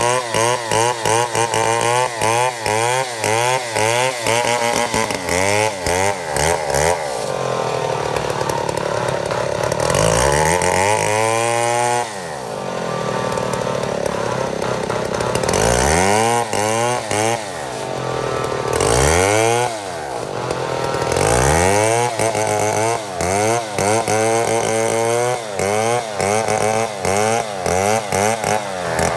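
Chainsaw running while milling a mahogany log, its engine pitch wavering up and down about twice a second. It holds steadier at high revs for a few seconds at a time, twice, with brief drops in pitch in between.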